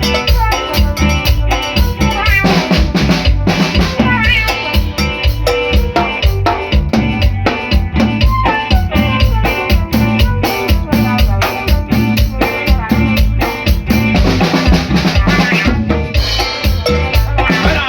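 Drum kit played in a steady groove, with bass drum, snare and rimshots, along with pitched instruments playing a tune.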